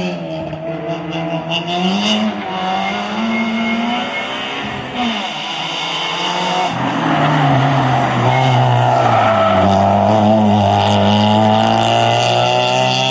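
Citroën Saxo rally car's four-cylinder engine being driven hard at a rally stage, revs climbing and dropping with several gear changes as it approaches, then running loud and steady as it passes close by in the second half.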